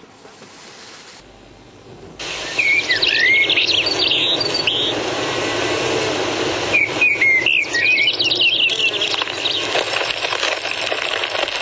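Bird-like chirping and whistling, many short rising and falling calls over a steady hiss, starting suddenly about two seconds in.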